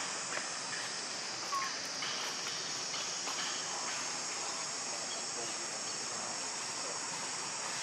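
Steady high-pitched chorus of insects shrilling, with a brief faint chirp about a second and a half in.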